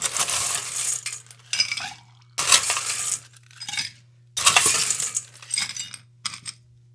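Ice cubes scooped and dropped into a cocktail shaker, clinking and rattling in a string of bursts: three of about a second each and several shorter ones.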